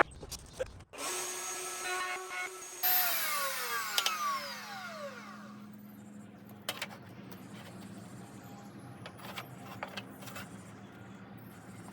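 Router in a router table running at a steady high whine for a couple of seconds while test-cutting a rabbet in a scrap piece of wood, then switched off and winding down, its pitch falling over a few seconds. A few light clicks follow.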